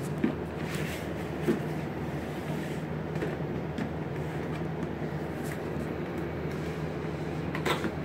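Cardboard product boxes being handled on a wooden table: two light knocks in the first two seconds as a box is set down, and a brief scrape and rustle of cardboard near the end as the white inner box's lid is worked open, over a steady room hum.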